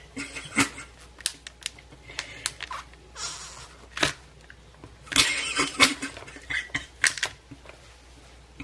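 Hands handling slime and its plastic containers: scattered sharp clicks and taps with short stretches of crinkling rustle, the longest about five seconds in.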